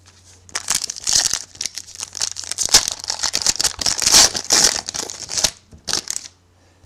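Wrapper of a 2011 Playoff Contenders football card pack being torn open and crumpled by hand: a dense crackling from about half a second in until about five and a half seconds, then one short crinkle near the end.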